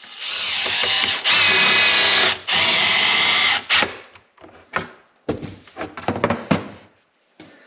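Power drill driving in the fasteners of a snowmobile ski's keel bar: three runs of a steady motor whine over the first three and a half seconds. Then a few short clicks and knocks from the tool and parts being handled.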